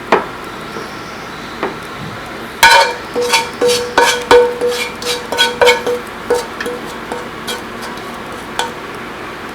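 Background music with plucked, guitar-like notes. A quick run of repeated ringing notes comes from about three to six seconds in, with a couple of sharp clicks before it.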